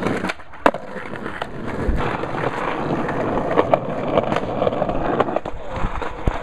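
Skateboard wheels rolling on a concrete sidewalk, with scattered sharp clacks of the board throughout.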